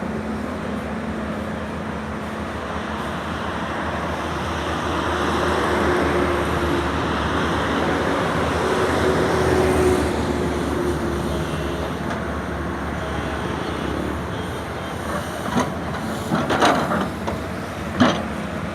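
Sany SY210 excavator's diesel engine and hydraulics running steadily while it works, growing louder in the middle. Several sharp knocks come in the last few seconds.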